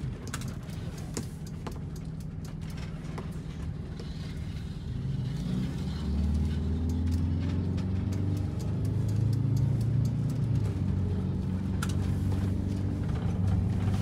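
Blue Bird Wanderlodge diesel coach running down the road, heard from inside the cab, its engine note rising and getting louder about five seconds in as it pulls harder. Scattered light clicks and rattles from the coach's interior ride over the engine throughout.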